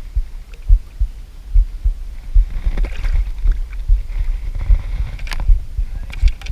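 Irregular low thumps and rumble on the microphone, with a few sharp clicks about five seconds in, as a caught smallmouth bass is handled aboard a kayak.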